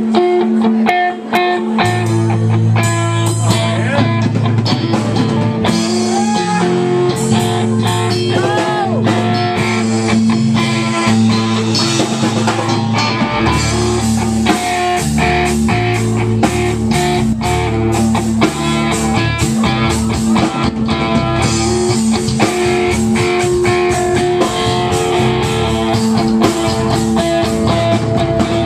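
Live blues-rock band playing: electric guitar with bending notes over drum kit, with bass guitar coming in about two seconds in.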